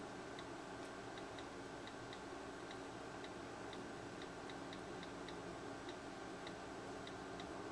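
iPad mini on-screen keyboard clicking as keys are tapped: faint short clicks at uneven spacing, a few a second, over a steady low hum and hiss.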